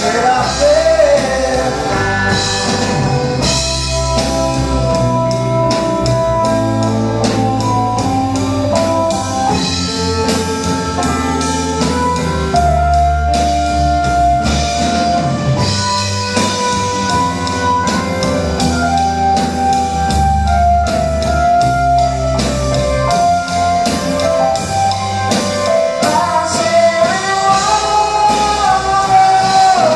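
Live rock band playing an instrumental passage: a keyboard melody of long held notes over bass guitar, electric guitars and a drum kit.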